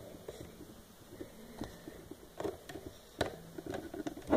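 Small plastic loom handled in the fingers, with rubber bands on its pegs: light scattered ticks and a few sharper clicks, about a second and a half in, near two and a half seconds and around three seconds.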